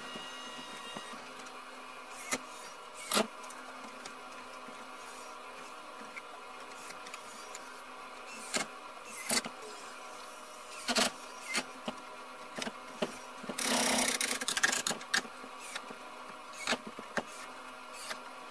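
Workshop assembly noise from building the underside of an MDF pool table: a steady mechanical hum with scattered knocks and clicks, and about a second of harsher noise around fourteen seconds in.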